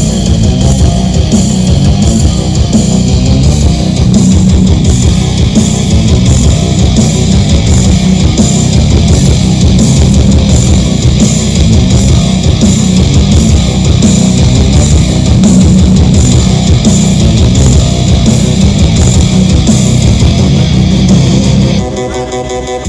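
Loud rock music with electric guitar and heavy bass, played through a large carnival sound system. Near the end it drops to a quieter passage with a rising sweep.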